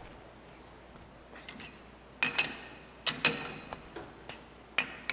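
Chuck key tightening a three-jaw lathe chuck onto solid round bar stock: a few sharp metallic clinks and clanks with short ringing, the loudest about two and three seconds in and one more near the end.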